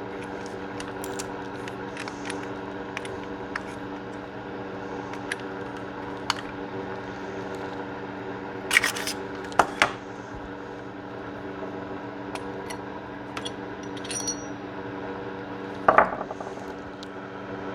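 Small metallic clicks and clinks of a Ruger EC9s pistol being taken apart with a Leatherman multi-tool, with a few sharper clacks about nine and sixteen seconds in.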